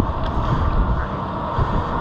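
Steady rushing noise of water running down a halfpipe water slide, with wind on the microphone, as an inflatable tube tips over the start into the initial drop.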